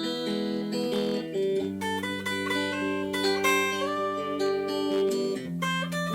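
Guitar playing a Spanish-style blues in A minor: plucked melody notes over sustained, ringing bass notes, the bass changing about a second and a half in and again near the end.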